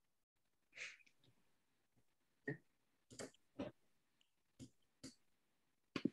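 Near silence on a noise-gated video-call microphone, broken by one faint breath about a second in and a handful of brief, soft clicks.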